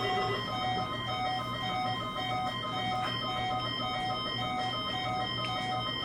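Electronic alert tone: a higher and a lower beep alternating several times a second over steady held tones.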